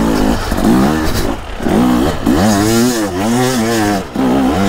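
Dirt bike engine revving hard on the trail, its pitch surging up and falling back with the throttle about twice a second.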